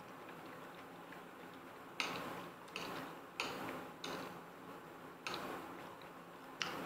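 Close-miked eating sounds of lobster and noodles being chewed: a string of about six sharp, wet mouth smacks starting about two seconds in, over quieter chewing.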